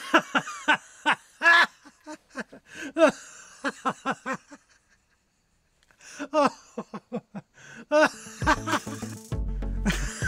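Recorded human laughter in short rapid bursts, breaking off for about a second just before halfway and then resuming. Background music with a low beat comes in about eight seconds in, under the laughter.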